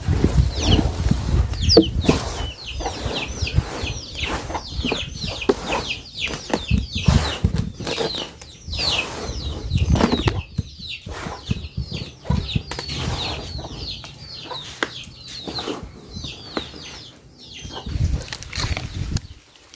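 Many small birds chirping continually in quick, high, falling notes, over low rustling and knocking as a damp mix of charcoal dust, sawdust and anthill soil is stirred with a stick.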